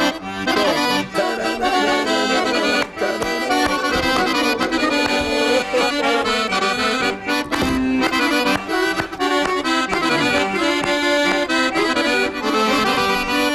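Guerrini piano accordion playing a solo instrumental introduction, a quick melody over chords, leading into a Balkan folk song.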